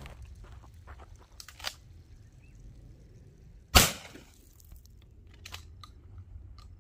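A single loud shotgun blast about four seconds in, with a short echo after it: a 12-gauge 70 mm flash-bang round fired from a pump-action shotgun. A few faint footsteps on dirt come before it.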